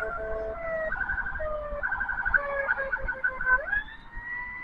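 Electronic ambulance siren switching between rapid warbling patterns and steady held tones; near the end one tone sweeps up and holds.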